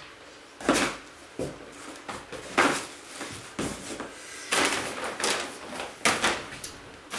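Rummaging and packing by hand: a series of rustles, scrapes and knocks as items are moved and put into storage boxes, about seven separate bursts.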